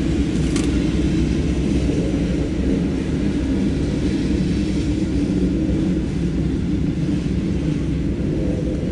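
Loaded coal train's hopper cars rolling past, a steady low rumble of wheels on rail.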